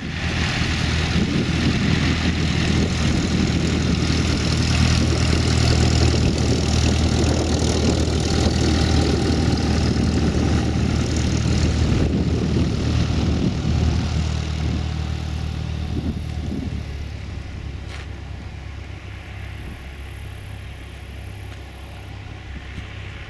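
Cessna 172's piston engine and propeller running at low taxi power close by, a steady low drone. A little over halfway through it fades as the plane taxis away.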